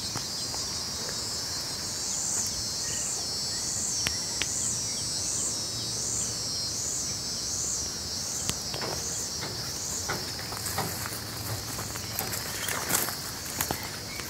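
A steady, high-pitched chorus of insects that swells and fades in a regular pulse, a little under twice a second, through the middle. Scattered light clicks and rustles come mostly in the second half.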